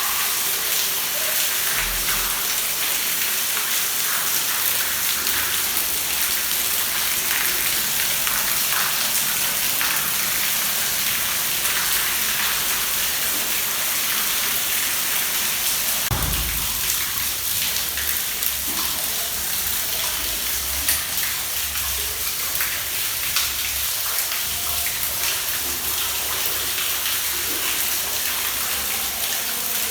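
Water pouring and splashing steadily inside an apartment building, like a small indoor waterfall, with scattered drips and a low thump about halfway through.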